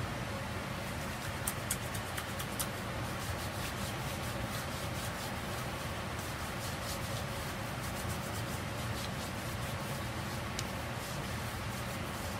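Oiled hands rubbing together and over the skin of the arm, a soft rubbing with scattered small clicks, most of them in the first few seconds, over a steady hiss.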